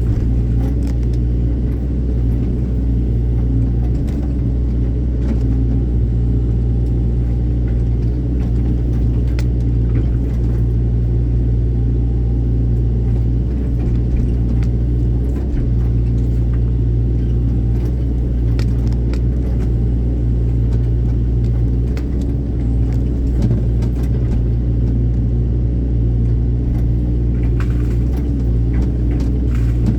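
Hydraulic excavator's diesel engine running steadily with a deep hum, with scattered light clicks and snaps over it.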